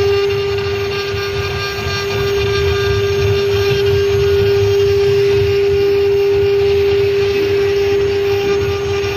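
CNC wood router's spindle running at a steady speed, a constant whine over a low mechanical rumble.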